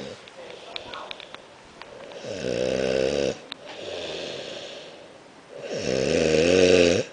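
A man snoring in his sleep: two long, loud snores about three seconds apart, each cutting off suddenly, with a softer breathy exhale between them.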